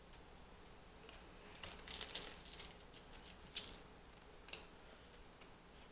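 Faint eating sounds: a spoonful of chili being chewed, with scattered small clicks and smacks clustered about two seconds in and a couple more later.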